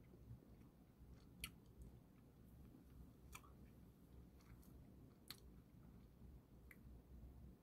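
Near silence: low room hum with faint chewing, a few soft mouth clicks spread through it.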